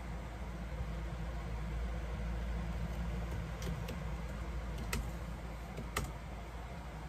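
Steady low mechanical hum of room noise, with a few short sharp clicks about three and a half, five and six seconds in.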